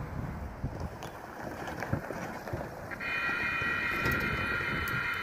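A car rumbling over the grade crossing with some wind on the microphone, then about three seconds in the railroad crossing's warning bell starts ringing, a steady high ringing that signals an approaching train.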